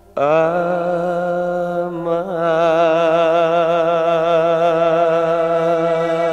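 Male voice singing one long held note in a pop ballad, sliding up into it at the start and then sustaining it with a steady vibrato.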